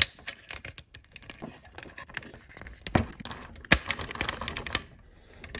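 Hard plastic clicking and rattling as a heated-seat switch with its wires attached is worked into a Porsche Boxster centre-console switch panel. There are scattered ticks, a quick run of clicks about two-thirds of the way through, and a sharp click at the very end as the switch is forced into the panel's opening.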